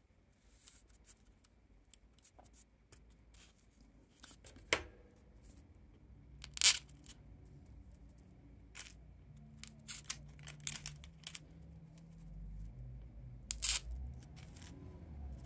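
Light handling sounds of tweezers, pins and paper strips on a foam pinning board: scattered small clicks and rustles, with two louder sharp clicks, one about a third of the way in and one near the end. A faint low hum runs through the second half.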